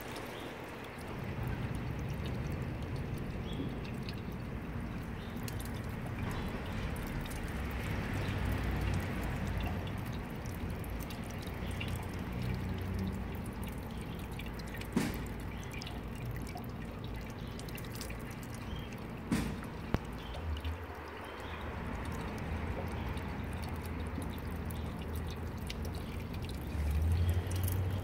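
Drinking fountain's water jet running and splashing into a stainless-steel basin, a steady trickling and dripping, with a couple of short sharp clicks about halfway through.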